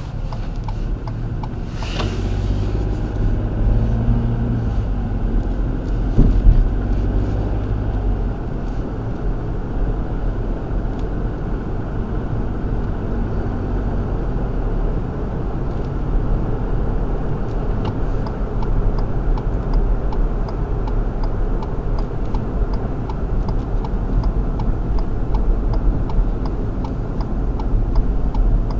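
Car cabin noise picked up by a dashcam's microphone while driving: a steady engine and road rumble, with a thud about six seconds in. From a little past halfway, a turn-signal indicator ticks about twice a second.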